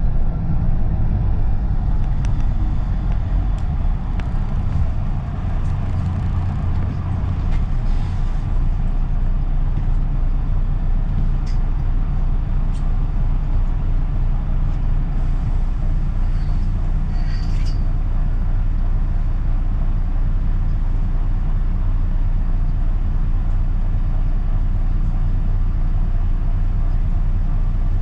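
Low, steady rumble of a London double-decker bus heard from inside on the upper deck as it slows and then idles at a red light. A brief hiss of air comes about two-thirds of the way through.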